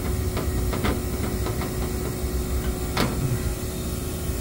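Air-conditioning outdoor condensing unit running: a steady low rumble and hum under an even rush of air. A few light clicks in the first two seconds and one sharper click about three seconds in.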